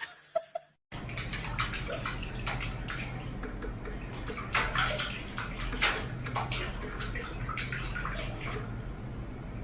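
Water running and splashing, like a tub or basin being filled or something washed in it, with many small irregular splashes over a steady low hum.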